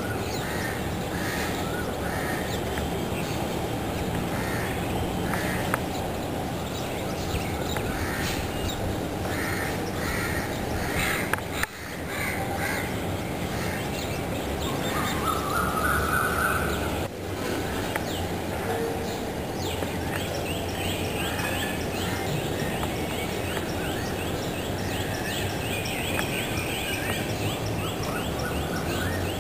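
Crows cawing again and again, with quick series of higher bird chirps later on, over a steady low rumble of city background noise.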